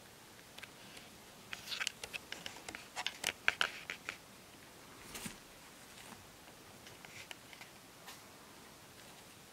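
A quick run of small, crisp clicks and crackles lasting about two seconds, then a softer rustle and a few scattered faint clicks, made by pet rats on a blanket.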